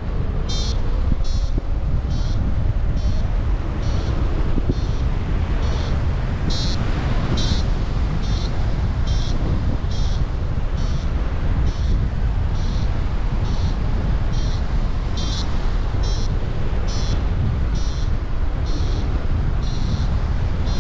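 Paraglider variometer beeping evenly, about twice a second: the climb tone that signals rising air. Steady wind noise on the microphone runs underneath.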